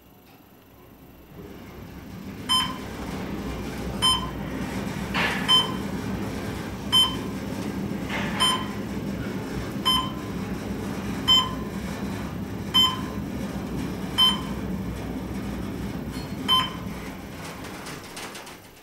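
Elevator car travelling down, a steady low hum and rumble of the ride, with a short electronic floor-passing beep about every one and a half seconds as it passes each floor. The car is a Westinghouse elevator modernized by Schindler.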